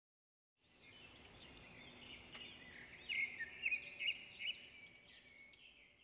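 Small birds chirping and twittering, many short high calls overlapping. The chirping fades in about a second in, is busiest around the middle, and thins out toward the end.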